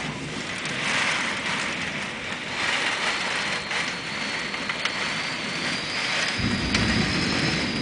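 Heavy thunderstorm rain pouring, a steady hiss of downpour heard from behind window glass. A faint thin high whistle runs through the second half, and a low rumble starts suddenly near the end.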